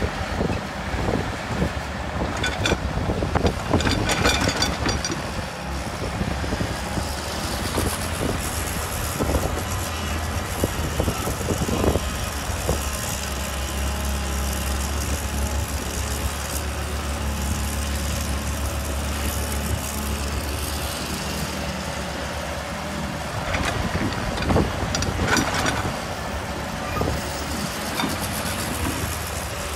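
Crawler excavator's diesel engine running with a steady low hum, joined by short clanks and knocks from the bucket and arm as it digs soil and loads it into a tipper truck.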